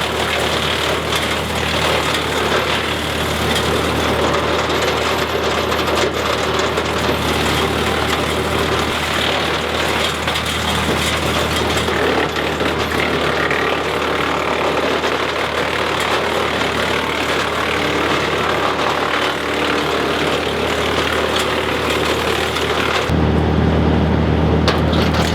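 Mahindra diesel tractor driving a WoodMaxx PTO wood chipper at working speed, a steady engine drone under a continuous rattle of small knocks. About 23 seconds in, the sound turns deeper and heavier as the high hiss drops away.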